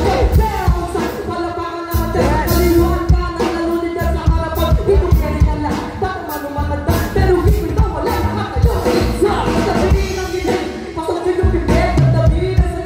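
Live band playing with a drum kit beating steadily under several vocalists singing into microphones through the PA.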